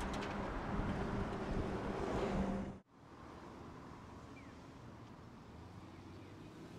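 Vintage imported tram, Tosa Den car 198, running close by with a steady low hum. About three seconds in, the sound cuts to quieter, distant street ambience with traffic noise and a few faint short chirps.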